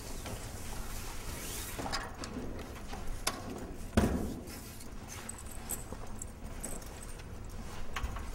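Footsteps along a hallway with scattered knocks and bumps, the loudest a single thump about four seconds in, over a steady low hum.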